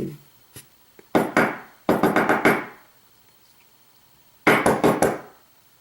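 Metal lock body being tapped rapidly against a hard surface in three short bursts of clicks, to knock the springs and driver pins out of its pin chambers; the springs are not coming up.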